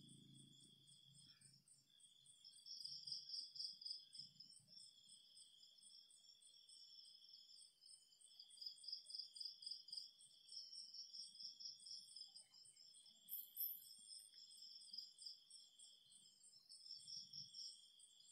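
Faint chorus of night insects chirring: one long trill that breaks off briefly every second or two, with faster pulsing calls higher in pitch over it.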